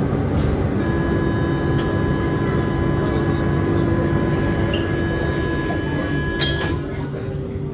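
Door-closing warning tone of an Alstom MP05 metro train at a platform: a steady high tone held for about six seconds over the train's low equipment hum, stopping as the doors slide shut with a knock near the end.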